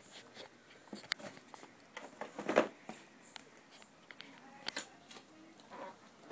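Cardboard toy box being handled: scattered light taps and rustles, with a louder rustle about two and a half seconds in.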